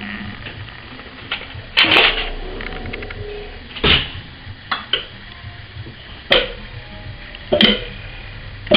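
Kitchen utensils struck one after another, about six sharp irregular hits, each ringing briefly with a pitched tone.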